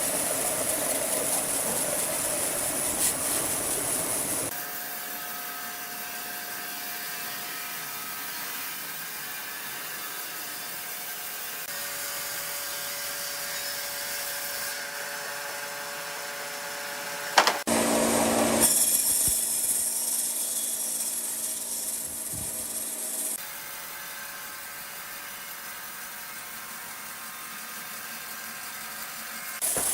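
Sawmill machinery running and saw cutting wood, a steady mechanical whine and noise that changes abruptly several times as the shots change, with a sharp knock about seventeen seconds in.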